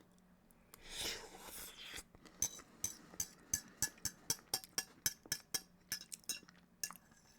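Utensil clinking quickly and lightly against a bowl, about six clinks a second for several seconds, with a hiss lasting about a second before it starts.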